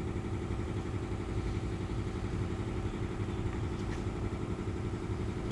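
Steady mechanical hum, low and even, with a held pitch.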